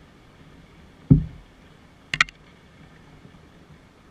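Knocks on the hull of a wooden canoe: a dull low thud about a second in, then a sharp double click a second later.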